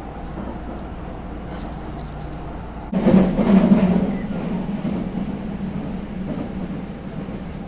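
Running noise of a subway train heard inside the car: a steady low rumble, then about three seconds in a sudden louder rush and rattle that eases off after a second and carries on at a lower level.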